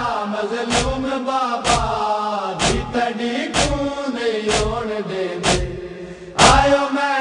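A group of men chanting a Punjabi noha (mourning lament) together, kept in time by chest-beating (matam): sharp hand strikes on the chest about once a second. A louder strike comes near the end.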